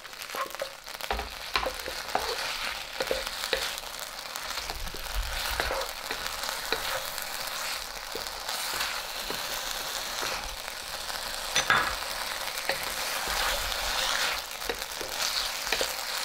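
Shredded pork, green pepper, wood ear and carrot strips sizzling steadily in oil as they are stir-fried in a wok, with a wooden spatula scraping and tapping against the pan and one sharper knock about twelve seconds in.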